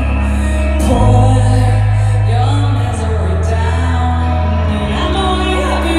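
Rock band playing live, recorded from the audience in a large hall: loud sustained bass and guitars with a woman singing the lead vocal.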